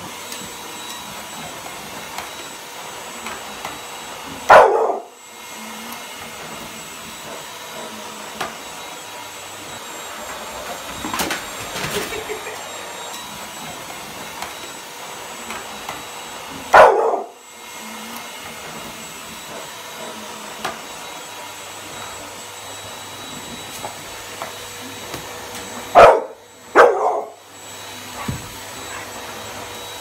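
A vacuum cleaner running steadily with a constant whine, while an American bully dog barks loudly at it: once about four seconds in, again about seventeen seconds in, and twice in quick succession near the end.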